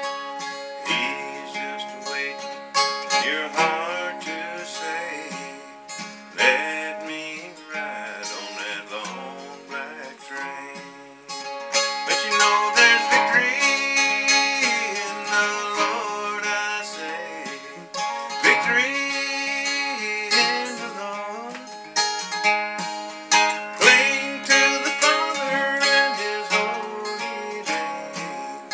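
Acoustic guitar played alone: an instrumental break between sung verses, with sharp plucked attacks throughout.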